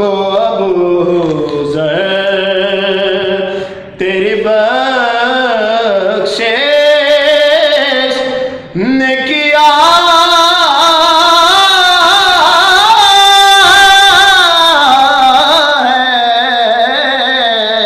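A man singing a Punjabi manqabat (a devotional poem) solo, in long drawn-out phrases with wavering held notes and short breaks for breath. The voice climbs higher and grows louder in the second half.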